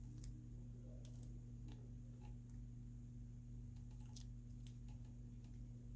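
A few faint, sparse ticks and rustles as the backing film is peeled off the adhesive strips on a phone, over a steady low electrical hum.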